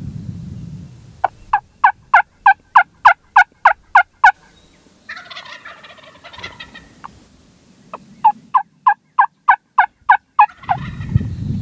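Wingbone turkey call giving a run of loud hen yelps, about four a second, each note falling in pitch. A second run of about nine yelps comes near the end, with a softer, ragged stretch of sound between the two runs.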